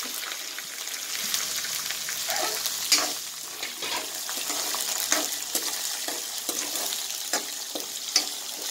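Chopped onions, with peanuts and curry leaves, sizzling in hot oil in a metal kadhai, stirred with a metal ladle that scrapes and clinks against the pan about once a second.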